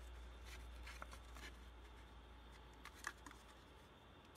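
Faint clicks and crinkles of thin aluminium drink cans being handled and pulled apart, over a low steady hum.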